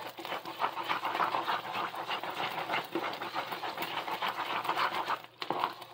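Wooden spoon stirring a pot of thick, boiling fudge, the mixture bubbling and crackling under the strokes. The fudge is thickening but not yet at the soft-ball stage. The sound breaks off briefly about five seconds in.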